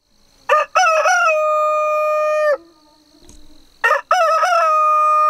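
A rooster crowing twice, each crow opening with a few short choppy notes and then a long held note of about two seconds; the second crow starts about four seconds in.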